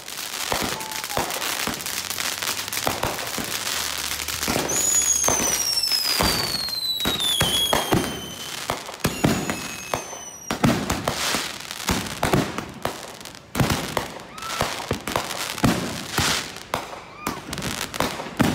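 A 500-gram consumer fireworks cake firing a rapid barrage: repeated launch shots and crackling aerial bursts. A falling whistle runs from about five seconds in to about eight seconds.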